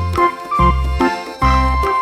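Background music: a light keyboard tune over a bass note that pulses about every 0.7 seconds.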